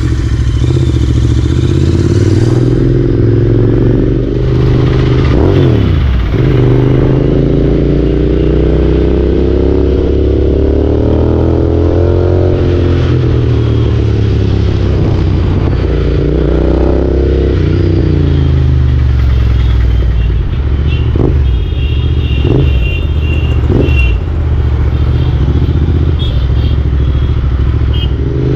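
Motorcycle engine running while riding in traffic, its pitch climbing and dropping again several times as the rider works the throttle and gears.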